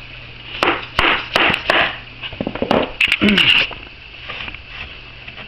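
A run of sharp knocks and scrapes from handling freshly glued cork laminate planks, with a denser cluster about three seconds in.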